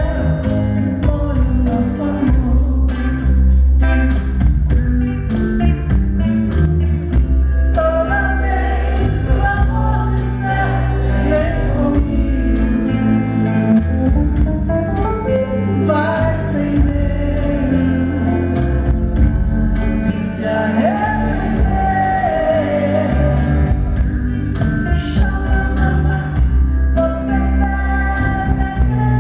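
A woman singing a Brazilian pop song into a microphone, live with a band of drums, guitars and keyboards behind her.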